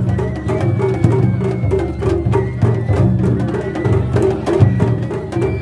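Japanese festival hayashi music played from a float: taiko drums beat a steady, repeating rhythm under sharp metallic or wooden strikes, with a thin high note held over it at times.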